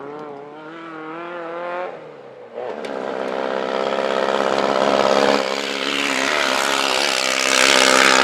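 Off-road race car engines going past at speed. One engine revs with a wavering pitch and drops away about two seconds in. A louder one then comes in, holding high revs steadily with a rushing noise that builds toward the end.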